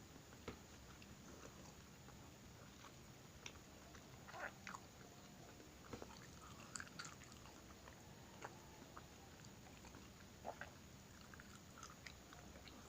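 A cat chewing and crunching food: faint, irregular crunches and clicks.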